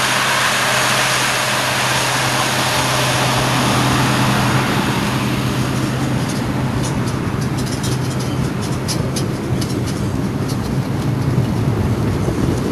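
An EM Baldwin diesel cane locomotive passes with a steady engine drone that fades out about halfway through. Its rake of loaded cane bins then rolls by, their wheels rattling and clicking over the rails.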